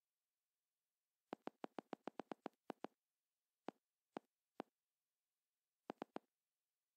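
Sharp clicks from pressing buttons on a screen. A quick run of about ten comes first, then three spaced clicks, then three in quick succession near the end.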